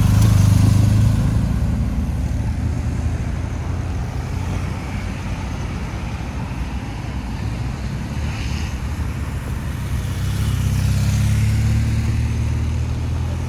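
Motorcade vehicles passing close by: a BMW police motorcycle's engine is loudest in the first second as it goes past, then cars follow with engine and tyre noise on the road, swelling again as another car passes near the end.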